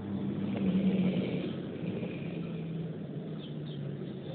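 A man snoring: two long snores, the first the louder.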